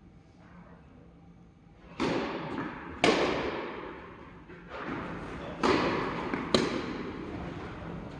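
Tennis balls being struck by rackets during a doubles rally: four sharp hits, each with a long echo.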